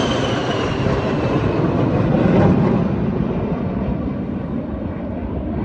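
A passing engine: a steady rumble with a faint whine that slowly falls in pitch over the first few seconds.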